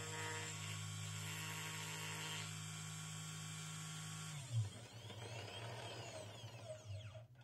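CNC 3018 Pro desktop router milling a wooden block: the spindle motor runs with a steady hum and whine as the end mill cuts. A little over four seconds in there is a knock, then whines that rise and fall in pitch as the head moves across the block, cutting off just before the end.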